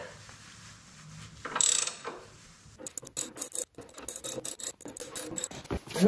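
Motorcycle scissor lift jack being lowered by cranking its screw with a long handle: after a short scrape, a run of rapid, uneven metallic clicks begins about three seconds in.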